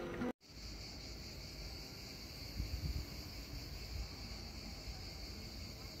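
Background music cuts off abruptly just after the start. Then a steady, high-pitched shrill drone of insects singing in the trees continues, with faint low bumps of handling or footsteps in the middle.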